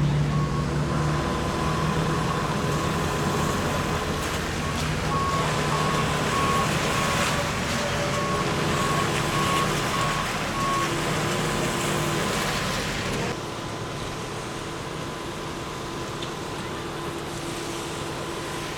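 A large vehicle's engine running, with a steady rushing noise and an intermittent high beeping through the first part. The whole sound drops abruptly about thirteen seconds in.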